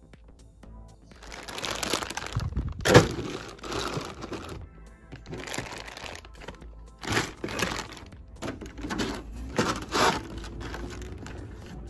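Clear plastic parts bags crinkling and rustling in bursts as they are handled and lifted inside a cardboard kit box, with one sharp crack about three seconds in. Soft background music plays underneath.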